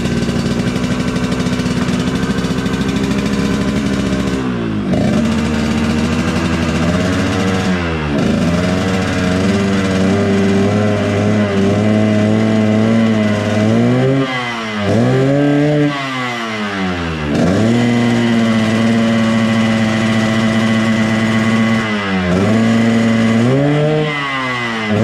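Yamaha RX-King's two-stroke single-cylinder engine running at raised revs, the engine speed dropping and climbing back several times as the throttle is worked.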